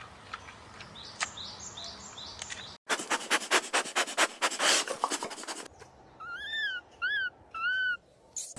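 Small animal sounds in three short takes: faint quick chirps, then a rapid scratchy rasping at about five strokes a second, then three high squeaky calls that rise and fall in pitch.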